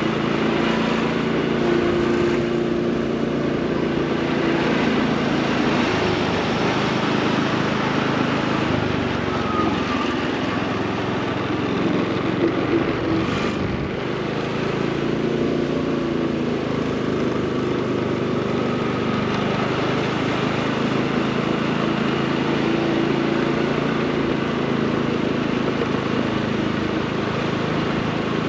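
Motorcycle engine running at low riding speed, its note rising and easing off a few times over steady road and street noise.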